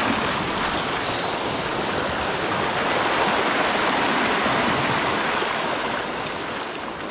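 Sea surf washing in steadily, a rushing hiss that swells in the middle and eases off near the end.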